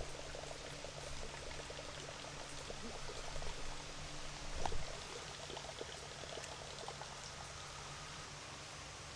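Water trickling and pouring steadily into a small creek pond over a steady low hum, with a short bump about four and a half seconds in.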